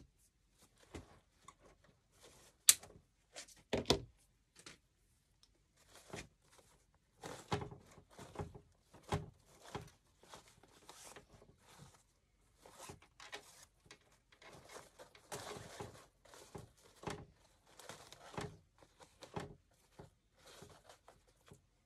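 Wired ribbon bow being fluffed and handled on a grapevine wreath: irregular rustling and crinkling, with two sharp knocks about three and four seconds in.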